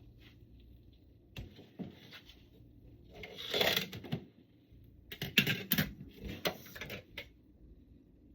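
Dishes and a serving utensil clinking and scraping as food is dished onto a plate: a few light clicks, then a scrape about three and a half seconds in, then a denser run of clatter about five to seven seconds in.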